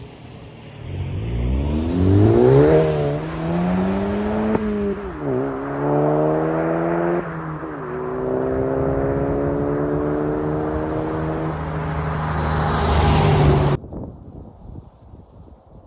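2018 Volkswagen GTI's turbocharged 2.0-litre four-cylinder exhaust, through a GTI TCR muffler, accelerating through the gears. The pitch climbs and drops back at two upshifts, then holds a long pull before cutting off suddenly.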